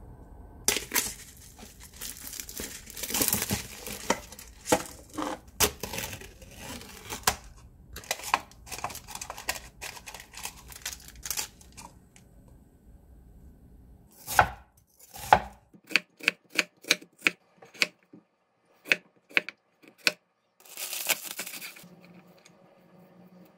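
Paper-and-plastic packaging of a cup noodle being torn open and crinkled, with the soup sachet handled. Then a chef's cleaver chops on a wooden cutting board in a run of about a dozen sharp chops, followed by a short rustle near the end.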